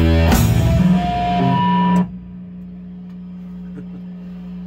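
Guitar music: a held chord, a new strum just after the start and a few held notes, then it cuts off about two seconds in. A steady low hum remains.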